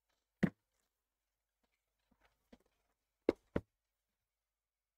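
A few sharp knocks on a desk from cards and packs being handled and set down: one about half a second in, a few faint ticks around two seconds, then two knocks in quick succession past three seconds.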